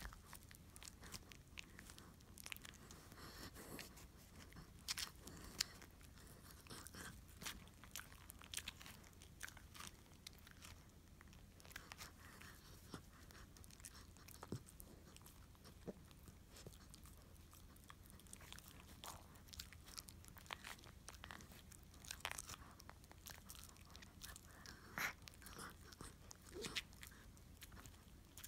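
Dog gnawing on a chew bone: faint, irregular crunching and clicking of teeth on the bone.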